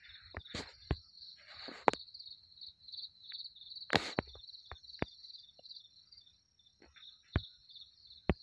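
Crickets chirping in a steady, high, pulsing trill, with sharp clicks and taps at irregular intervals. The loudest clicks come about two and four seconds in.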